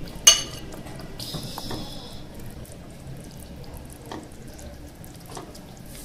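A metal ladle against a glass serving bowl of curry: one sharp clink with a short ring about a third of a second in, then faint liquid sounds and a few light taps.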